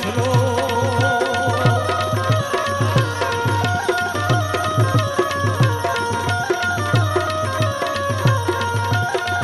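Instrumental interlude of Gujarati folk-devotional music: tabla keeping a steady beat under long held melody notes.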